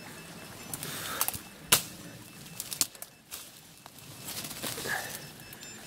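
A long wooden stick being swung and pushed through dense bramble thickets: leaves and stems rustling, with sharp cracks and snaps of twigs. The loudest snap comes about a second and a half in.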